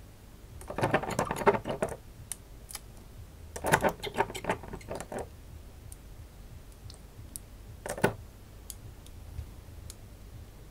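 Small glass bottles and a dropper being handled on a tabletop: clusters of light clicking and rattling about a second in and again around four seconds, then a single sharp click around eight seconds.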